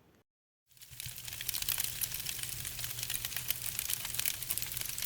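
Dense crackling made of many small clicks, starting abruptly about a second in after a brief dead silence, over a steady low hum.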